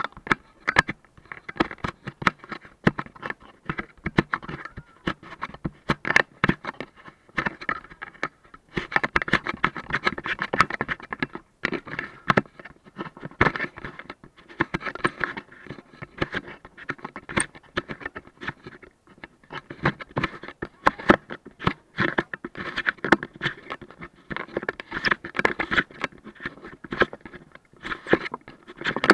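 Handling noise from fingers rubbing, tapping and scraping on the camera body right at its microphone: a dense, irregular run of clicks, scratches and rustles.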